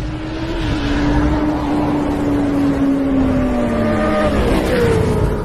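Motor scooter engine droning at a steady pitch while riding, with wind rushing over the microphone; about four seconds in the pitch drops as it slows.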